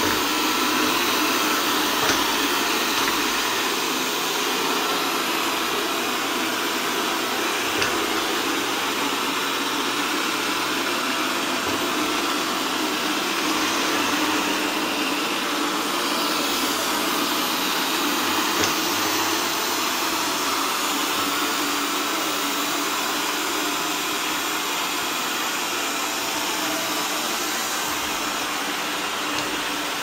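Xiaomi Mi Robot Vacuum Mop 2S robot vacuum running on a tiled floor: the steady hiss-like drone of its suction fan and brushes, with a few faint ticks.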